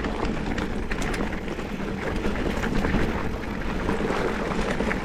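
Mountain bike rolling along a dirt singletrack trail: steady tyre and wind noise on the microphone, with small rattles and clicks from the bike throughout.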